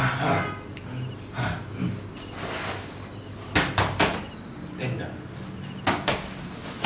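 Cricket chirps repeating every second or so, with two clusters of sharp knocks, the loudest sounds, about halfway through and near the end.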